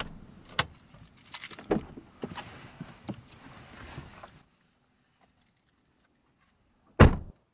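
Clicks, knocks and rustling of someone moving in and getting out of a car, then silence and a single loud thump of a car door slamming shut about seven seconds in.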